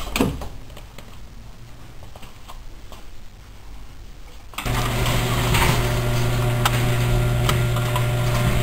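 A steady electrical hum with faint ticking inside the cabin of a BMW E30 325es switches on abruptly about halfway through, as the ignition is turned on and the dash warning lights come up; before it, only quiet rustling from getting into the seat.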